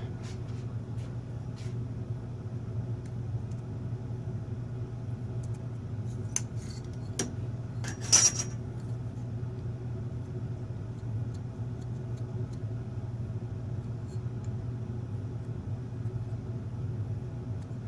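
Small clicks and taps of a steel ruler, pencil and aluminium plate being handled on a tabletop while measuring and marking, over a steady low hum. A brief, louder handling noise comes about eight seconds in.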